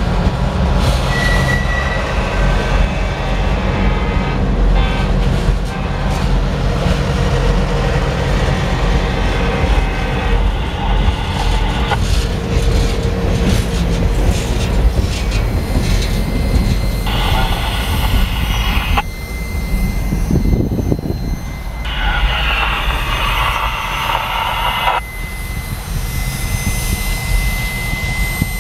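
Freight train of refrigerated boxcars rolling past at close range: a steady rumble and clatter of steel wheels on the rail. A faint high squeal comes and goes, and two stretches of brighter, higher-pitched hissing noise come about two-thirds of the way through.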